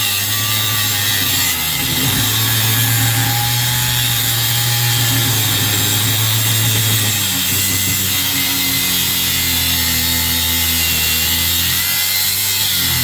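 Power tool cutting steadily through the ceiling fan's cast aluminum housing, its motor hum wavering slightly in pitch under the sound of the cut.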